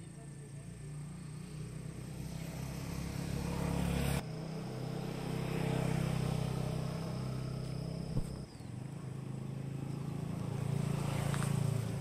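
Yamaha XSR 155 motorcycle's single-cylinder engine and exhaust running, the note building in loudness, dropping sharply about four seconds in, then building again.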